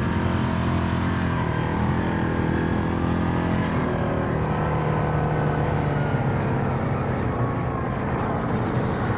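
ATV engine revving hard under load as the quad churns through deep mud, its pitch rising and falling.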